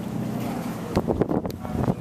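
Wind buffeting the microphone over a low steady rumble, with the gusts hitting harder and more unevenly from about a second in.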